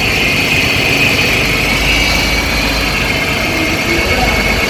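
2013 Ford F-150 engine idling steadily, with a steady high whine over the rumble.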